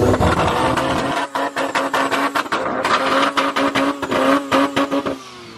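Modified widebody sports car creeping forward at low speed, its engine running with a steady hum and many irregular sharp crackles. The sound drops away shortly before the end.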